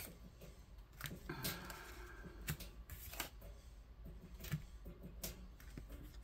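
Tarot cards being handled on a table: scattered light taps and clicks at uneven intervals, with a short rustle of cards between about one and two seconds in.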